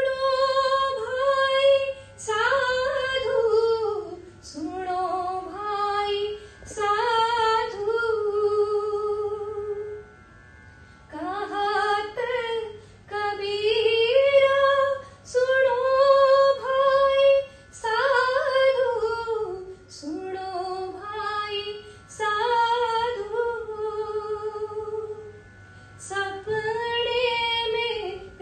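A woman singing a devotional bhajan solo into a handheld microphone, in long held and gliding phrases with short breaths between them and no instrument heard.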